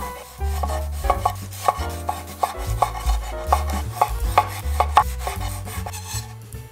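Chef's knife slicing cherry tomatoes on a wooden cutting board: an even run of short crisp cuts, about two to three a second, each ending in a light tap of the blade on the wood. Background music plays underneath.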